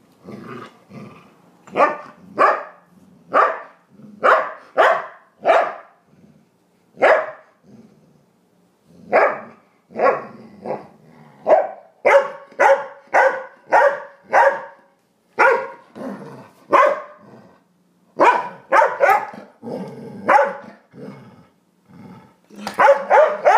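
Yellow Labrador retriever barking in play: about thirty short barks, roughly two a second, in runs broken by brief pauses. These are play-soliciting barks, given from a play bow over a chew bone.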